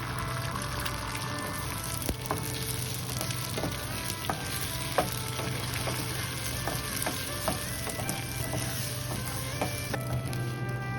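Food sizzling in hot oil in a frying pan, with scattered clicks of a utensil against the pan as it is stirred; the sizzle drops away about ten seconds in. Background music plays underneath.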